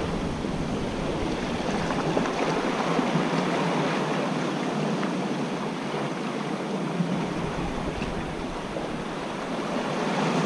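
Sea surf washing against a rock ledge: a steady rush and splash of small waves.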